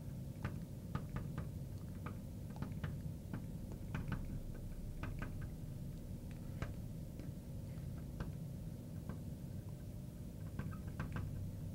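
A marker pen writing on a glass lightboard: irregular light ticks and taps of the pen tip against the glass, a few each second, over a low steady hum.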